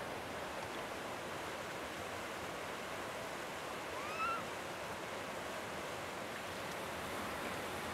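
Steady rushing noise of flowing water. About halfway through, a single short rising call cuts in, the coo call of a Japanese macaque.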